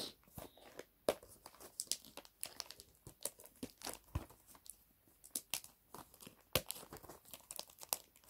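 Packaging of a mystery figure being crinkled, picked at and torn by hand in a struggle to get it open, with irregular sharp crackles and clicks.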